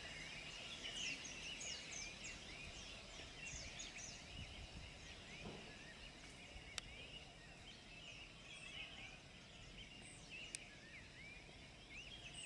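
Many small wild birds singing and chirping at once, a faint morning chorus of quick rising and falling chirps from the wooded slopes, with a couple of sharp ticks.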